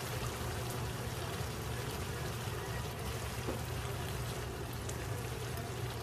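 Chicken in a thick spicy red sauce simmering in a frying pan, a steady bubbling of the sauce over a low steady hum.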